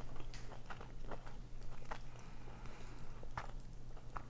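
A person chewing food close to the microphone: scattered wet mouth clicks and smacks, over a steady low hum.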